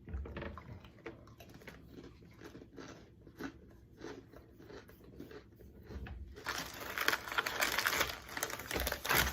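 Crisp bites and chewing of thin Oreo Tiramisu Thins cookies, a run of small crunches. About six seconds in a louder, denser rustling crinkle takes over for a few seconds.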